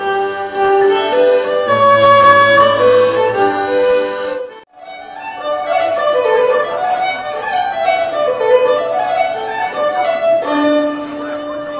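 Live Irish folk music led by a fiddle playing a lively tune. About halfway through, the music cuts off abruptly and picks up again.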